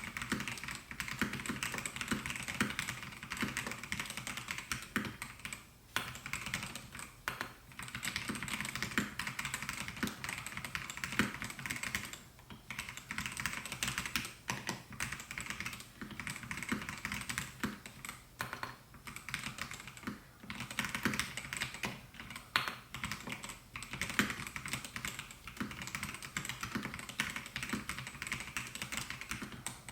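Continuous typing on a Melgeek Mojo68 mechanical keyboard with white Pro switches: a rapid, steady stream of key clacks, broken by a few brief pauses.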